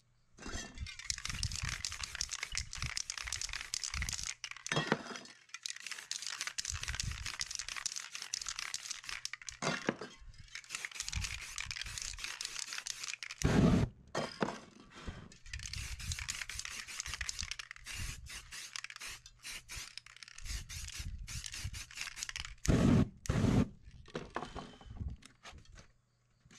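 Aerosol spray-paint cans hissing in a series of long bursts with short pauses between. About thirteen and a half seconds in there is a loud low whoosh as the wet paint on the board is set alight, and two more loud low bursts come about twenty-three seconds in.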